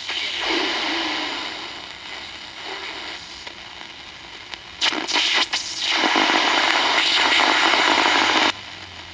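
Sokol 308 transistor radio's speaker hissing with static as it is tuned, the noise swelling and fading, loudest for the last few seconds before it cuts off suddenly near the end.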